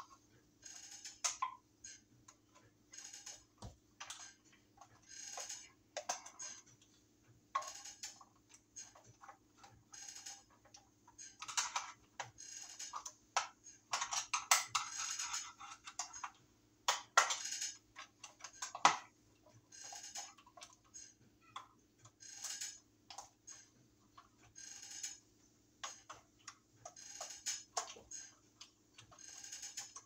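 Screwdriver working the terminal screws of a wall receptacle: short scraping and clicking strokes at an irregular pace, with a few sharper clicks.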